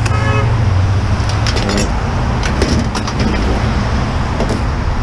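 Steady low rumble of a running vehicle and road traffic, with a short high tone at the very start. Several sharp knocks and scrapes of sheet metal come in clusters as a top-loading washing machine is handled.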